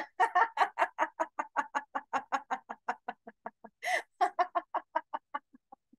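Deliberate laughter-yoga laughing: a single voice going 'ha-ha-ha' in quick even pulses, about five a second, that fade away. After a fresh breath about four seconds in, a second run starts and fades out.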